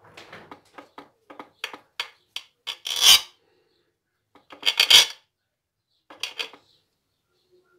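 A knife sawing through a syrup-soaked lemon loaf cake in short back-and-forth strokes, the blade scraping and clicking against the hard cutting board underneath. There is a quick run of small strokes, then louder scrapes about three seconds in and again about five seconds in, and a shorter one near the end.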